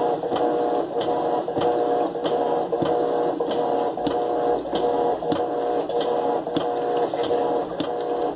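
Electrolux LTE12 top-loading washing machine agitating a load of clothes: a steady motor hum with a regular click a little under twice a second.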